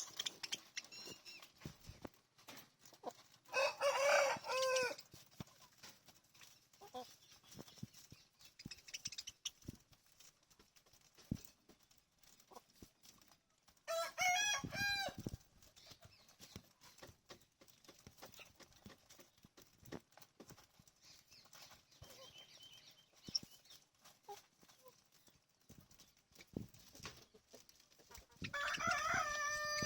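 A bird's loud, drawn-out call, each lasting about a second and a half, given three times roughly ten to fourteen seconds apart, with faint chirps and small clicks in between.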